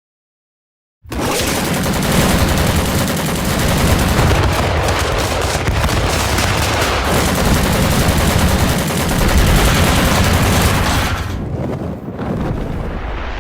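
Anime sound effect of a rapid punch barrage: dense, fast strings of hard impacts, close-packed like machine-gun fire. It starts after a second of silence and keeps going, dipping briefly near the end.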